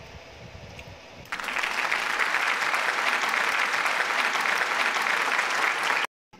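Applause that starts suddenly a little over a second in, runs as a steady dense clatter of many claps, and cuts off abruptly just before the end.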